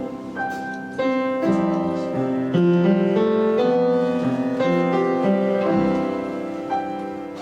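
Piano or keyboard playing sustained chords, changing chord about once a second, as quiet instrumental music.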